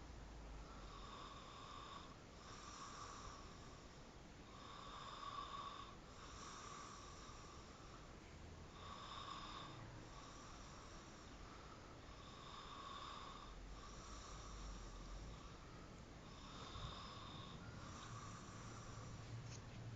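A person snoring faintly, each snore swelling and fading about every two seconds.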